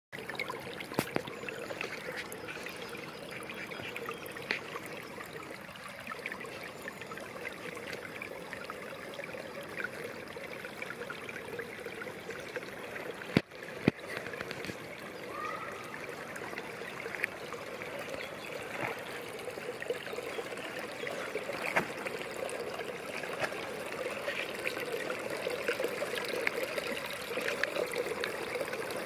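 A shallow woodland stream trickling and gurgling steadily over twigs and moss. A couple of sharp clicks come about halfway through.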